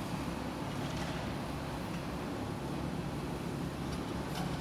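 Demolition excavator's diesel engine running steadily with a low, even rumble while the machine stands still.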